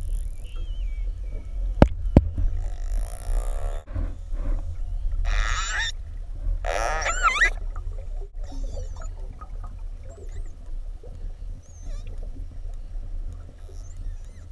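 Marine mammal calls heard underwater: two loud, wavering calls a few seconds apart, with fainter short whistles later, over a steady low rumble of water against the camera.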